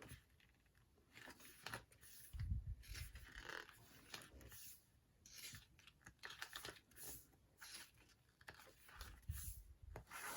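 Faint rustling and handling of album packaging and its small paper and plastic contents, with a couple of soft low thumps.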